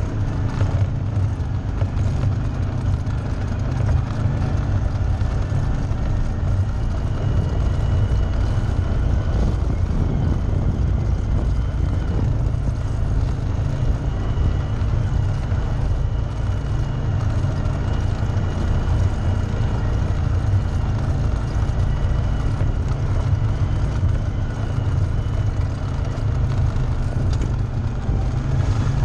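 Off-road vehicle's engine running steadily while driving along a dirt trail, a heavy low rumble at an even level with a faint steady whine above it.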